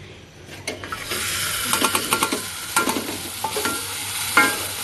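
Balinese base genep spice paste frying in hot coconut oil in a steel saucepan: it starts sizzling about a second in and keeps sizzling while a spatula stirs it, with scattered knocks and scrapes of the spatula against the pan.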